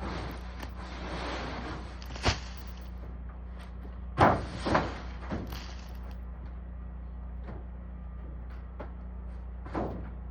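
A brush scraping over the barn roof for a few seconds, then a series of sharp knocks, the loudest about four seconds in, as it is banged to break loose ice-frozen leaves. A steady low hum runs underneath.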